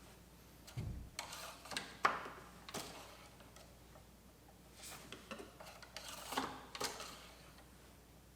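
Scattered light clicks and knocks, with a dull thump about a second in, from hands handling a plastic oil bottle and the fill cap while topping up the oil on a Kohler 747 mower engine.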